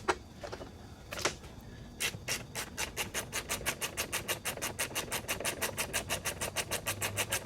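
Rapid, evenly spaced ratcheting clicks at about seven a second, starting about two seconds in after a few single clicks.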